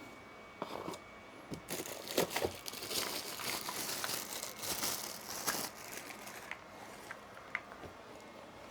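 Plastic packaging crinkling and rustling as it is handled, with scattered short clicks and crackles, most active in the first six seconds.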